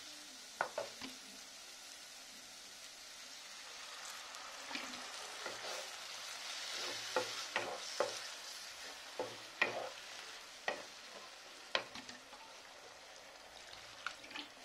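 Thick onion-tomato masala sizzling in a non-stick wok while a wooden spatula stirs it, with scattered sharp knocks of the spatula against the pan. The sizzle swells for a few seconds around the middle.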